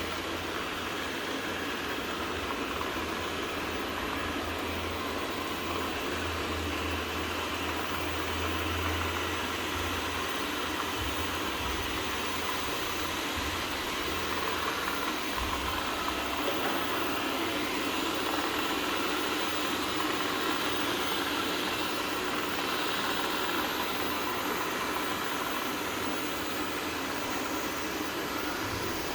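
Viomi V3 robot vacuum-mop running, a steady, even machine noise from its suction and brushes.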